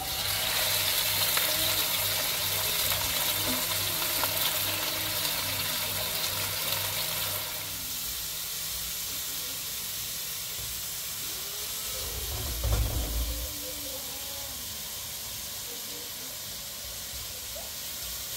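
Sliced onions and diced green peppers sizzling in a hot pan as they are stirred. The sizzle is loudest as they go in and eases off after about seven seconds. A low thump about twelve seconds in.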